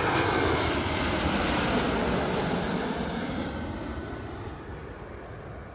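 Airliner's engines at takeoff power, a loud, even noise that is strongest at first and fades steadily over several seconds, with a faint high whine partway through.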